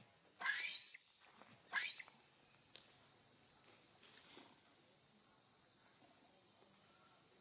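Young macaque screaming twice, two short, loud, pitch-bending shrieks in the first two seconds, as it is grabbed and pulled by another monkey. A steady high insect drone runs underneath.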